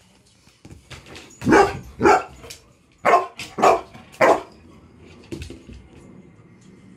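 Bernese Mountain Dog barking in excitement, a run of about five loud barks in quick succession starting about a second and a half in, with a few softer barks between and after.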